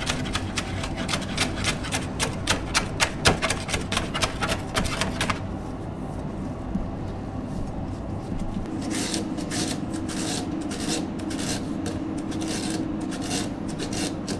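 Chef's knife rapidly chopping fresh herbs on a cutting board: quick blade strikes, about four or five a second, that stop about five seconds in. Later, a run of rustling swishes over a steady low hum.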